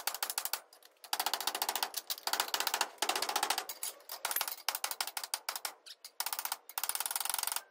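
A hammer beating on a metal exhaust header collector held in a bench vise. The blows come in quick runs of many strikes, with short pauses between the runs, as the collector's end is hammered into an oval.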